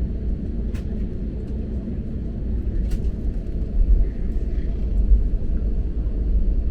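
Steady low rumble of an Airbus A321LR Neo heard inside the cabin: engine and airframe noise, with a couple of faint clicks.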